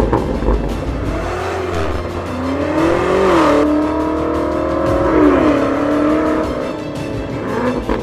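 Car engine revving: the pitch climbs, holds high for a couple of seconds, then drops back, with music underneath.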